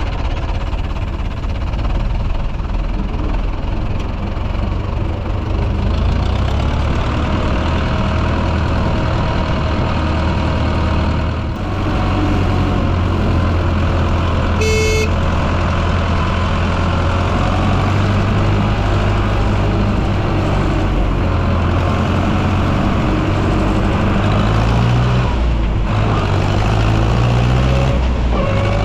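Zetor tractor engine running steadily under load, with its pitch climbing in steps near the end. A short horn toot sounds about halfway through.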